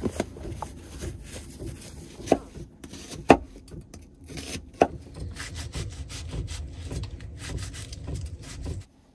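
Kitchen knife cutting an onion on a wooden cutting board: the blade rubs and scrapes through the onion, with a few separate knocks of the knife on the board, the loudest about three seconds in.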